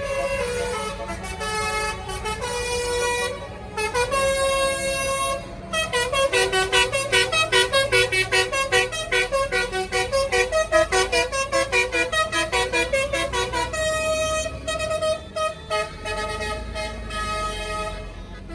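Bus telolet horn, a multi-tone air horn, playing a tune: a few long held notes, then a fast run of short notes about four a second from about six to fourteen seconds in, then longer notes again.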